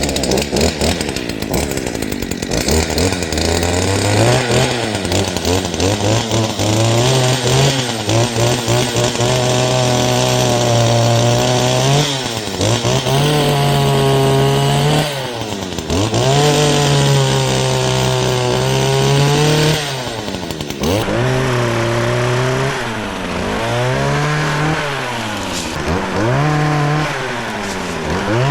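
Two-stroke chainsaw running at high revs while cutting off lower tree limbs. The throttle is let off and opened again several times, so the engine note drops and climbs, more often toward the end.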